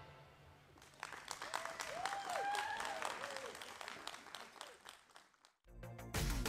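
Congregation applauding, moderately quiet, with a voice calling out briefly in the middle. The clapping fades away, and music starts near the end.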